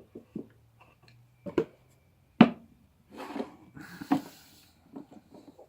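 Folding knives being handled: a few sharp metallic clicks and knocks, the loudest about two and a half seconds in and another a little after four seconds, with rustling between them.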